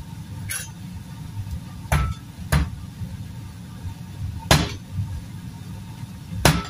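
Kitchen knife knocking on a cutting board while ginger is sliced, five sharp knocks at irregular intervals, over a steady low hum.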